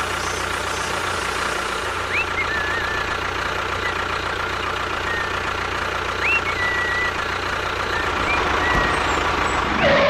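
Steady, unchanging engine-like running of a small vehicle motor, with a few short chirps over it.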